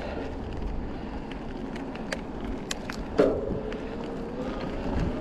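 Electric mountain bike ridden on asphalt: steady low wind and tyre rumble with a few sharp clicks. About three seconds in comes a louder click, then a steady whine that holds to the end.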